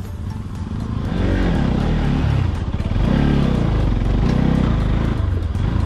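Motorcycle engine running on a rough dirt trail, its revs surging up and falling back about three times over a steady low rumble.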